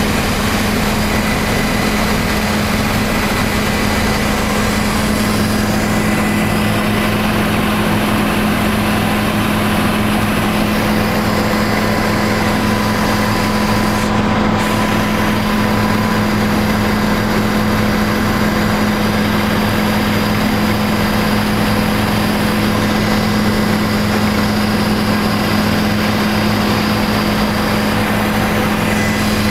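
Helicopter engine and rotors in steady cruising flight, heard from inside the passenger cabin: a loud, even drone with a strong constant low hum and a faint high whine.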